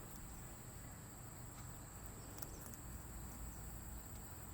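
Steady high-pitched chorus of insects, like crickets, over a low outdoor rumble, with a few faint scattered clicks.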